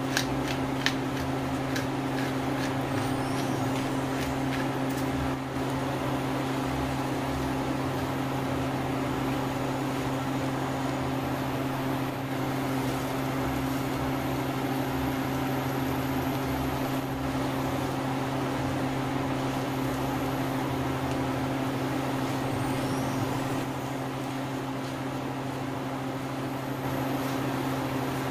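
Induction cooktop running with a steady electrical hum and fan noise, under a steady hiss from the shrimp frying in the pan. A few sharp clicks come in the first second.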